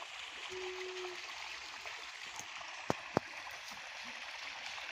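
Quiet steady outdoor background hiss, with a brief low hum about half a second in and two sharp clicks close together about three seconds in.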